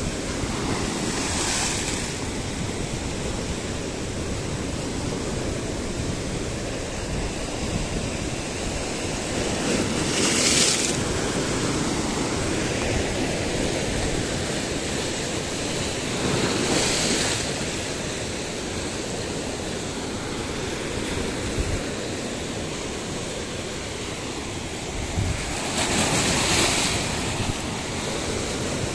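Sea surf breaking on and washing over a rocky shore: a steady rush of foaming water with four louder surges as waves crash against the rocks.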